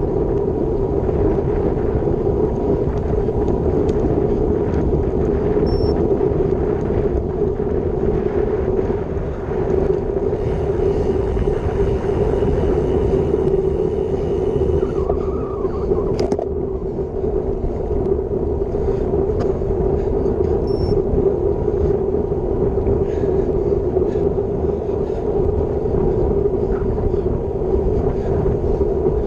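Wind rushing over an action camera's microphone with road-bike tyre noise on asphalt at about 30 km/h: a steady, loud rushing rumble. A brighter hiss joins for a few seconds about a third of the way in.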